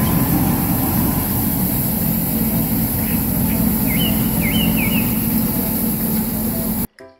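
Bucher street sweeper on a Mercedes-Benz truck working the gutter: its diesel engine running with the spinning side brush scrubbing litter, a steady dense rumble and hiss. A few short high chirps sound about four to five seconds in, and the sound cuts off abruptly near the end.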